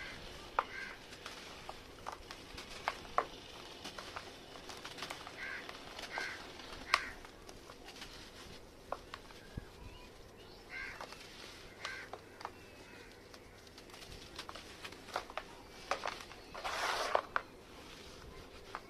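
Dry red sand chunks crunching and crumbling in short sharp cracks, with a longer crumbling crunch near the end. A bird calls a few times in the background.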